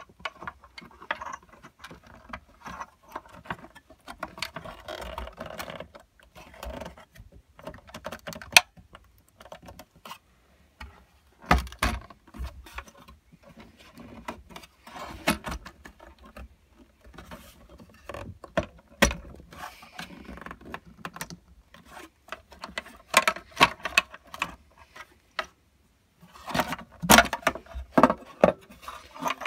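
Hands working in a Razor E100 scooter's plastic battery tray, pulling out wires and plug connectors: irregular clicks, knocks and rustling of plastic and wire, with a busier run of louder knocks near the end as the tray is tipped up.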